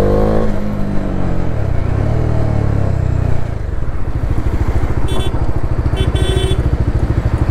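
Motorcycle engines: one revs up with a rising pitch at the start and runs on for a few seconds. From about three and a half seconds in, a motorcycle idles close by with a fast, even pulse.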